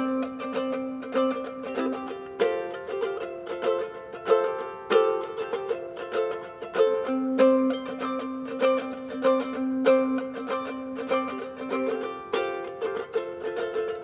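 Live acoustic music: a plucked string instrument, ukulele-like, picks a quick repeating pattern of notes. Twice a steady lower note is held underneath for a few seconds.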